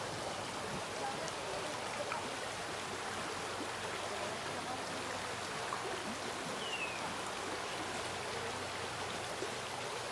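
Shallow river rippling over stones, a steady rush of flowing water.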